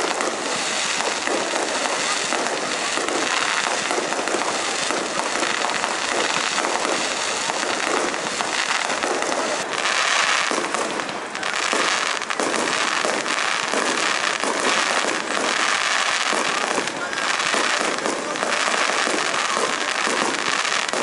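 Aerial fireworks display: a continuous, dense crackling and popping of many bursting shells, with little deep boom. The crackle grows denser and brighter about halfway as the sky fills with crackling glitter stars.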